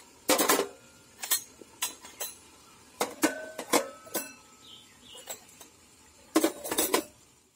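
Small stainless-steel idli cups clinking as they are handled and set down one by one on the perforated plate of a large metal steamer pot: about a dozen sharp clinks, a few ringing briefly, the loudest cluster about six seconds in.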